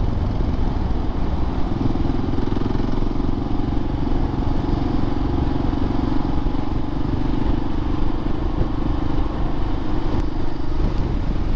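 Motorcycle engine running at a steady cruise while riding. A constant drone holds from about a second and a half in, over a continuous low rumble.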